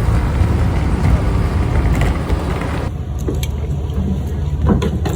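An engine running steadily with wind rushing over the microphone; about three seconds in the hiss thins out suddenly.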